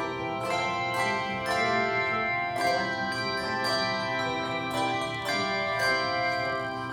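Handbell choir playing a Christmas song: bells struck one after another in a melody, each tone ringing on and overlapping the next.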